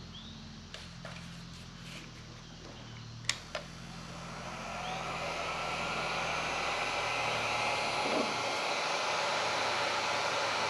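Electric heat gun switched on and blowing: its airy rush builds about four seconds in and then runs steadily. A few light clicks and one sharp tap come before it.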